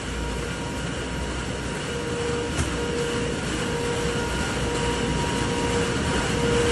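Steady mechanical hum and rumble of shop machinery with a constant tone, and a sharp metallic click about two and a half seconds in from a steel tool chest drawer being worked. A louder knock comes at the very end.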